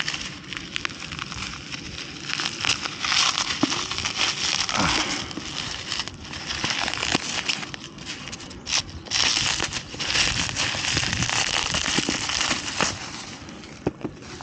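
Packaging being handled and unwrapped, a dense crinkling and crackling with many small clicks, briefly pausing about two-thirds of the way through.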